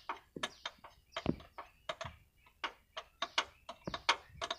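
Quick, irregular metallic clicks and taps, several a second, from hand tools and parts being worked on a Scania truck's gearbox high/low range-change servo as it is opened for repair.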